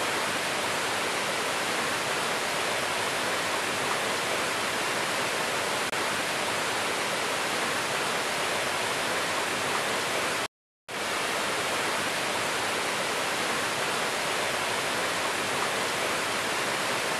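Steady rushing of a waterfall, an even hiss with no change in it, broken once by a short dead gap about ten and a half seconds in.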